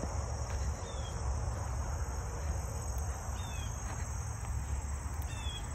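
Insects trilling steadily in a high, unbroken chorus, with three short high chirps falling in pitch scattered through it, over a low rumble.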